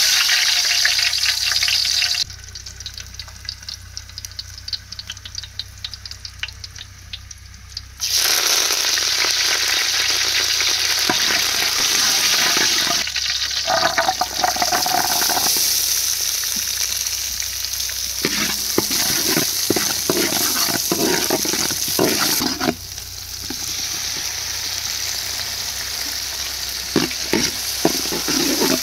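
Pork frying and sizzling in a pan, stirred with a utensil that scrapes and knocks against the pan now and then.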